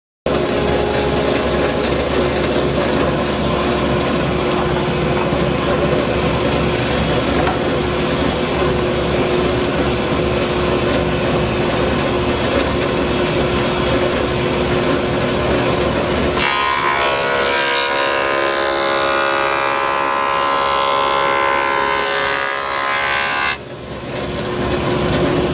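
Woodworking power tool running loudly and steadily with a constant hum; about 16 seconds in the sound turns to a higher, ringing whine, then stops abruptly near the end.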